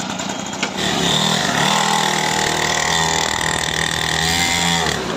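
Single-cylinder engine of a 49cc petrol mini dirt bike running as the rider pulls away, its pitch dipping near the end as the throttle eases. The bike has no clutch or gears, so the engine note changes only with the throttle, without gear shifts.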